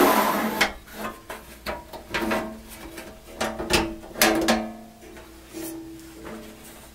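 Sheet-metal cover of an IBM PC XT clone case being lifted clear of the chassis: a string of knocks and clanks, several of them leaving the panel ringing briefly, growing sparser near the end.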